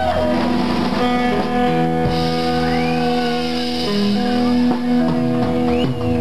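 Live rock band playing, with held guitar chords that change every second or so.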